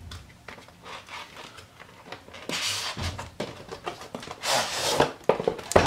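Cardboard lid of a Mac mini box sliding off its snug base: soft rubbing of cardboard on cardboard, with two louder scraping swishes about two and a half and four and a half seconds in, and a couple of light taps near the end.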